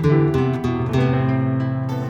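Music led by a plucked acoustic guitar, a sequence of picked and strummed notes with a sustained bass note.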